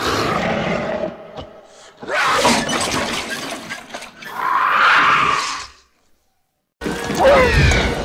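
Designed creature vocalisations of Baby Zilla, the infant mutated iguana monsters: a run of shrieks and screeches, a second of silence about six seconds in, then a screech with sliding pitch over a low rumble near the end.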